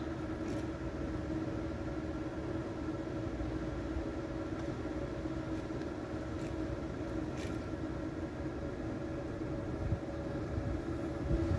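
Freight train of empty flat wagons on the track beside the platform, giving a steady hum of a few constant tones over a low rumble. A few faint clicks come through, and it grows a little louder near the end.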